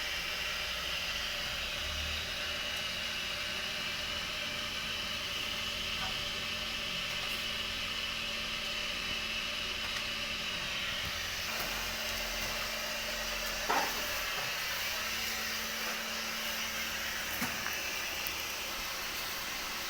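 Steady roaring hiss of a waste-to-energy plant's furnace and its machinery, with a low steady hum that stops near the end. A single brief knock comes about two-thirds of the way through.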